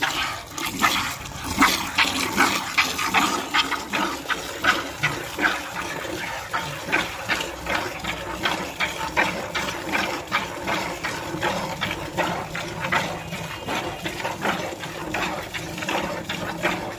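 A cow being milked by hand: rhythmic squirts of milk hissing into a plastic bucket, about two or three a second, one pull after another.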